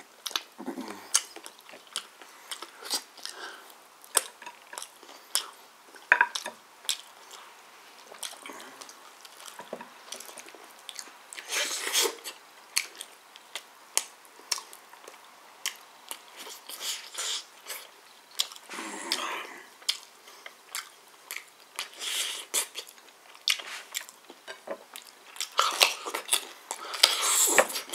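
Close-up chewing, lip-smacking and tearing of a roasted whole chicken eaten by hand: irregular short smacks and clicks. Near the end come louder crunches of biting into a whole carrot.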